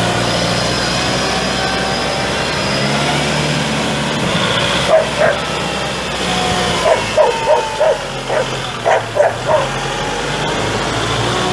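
Kubota L6060 tractor's 2.4 L four-cylinder turbo diesel running steadily. Over it a dog barks in short yaps, a couple near the middle, then a quick run of about eight.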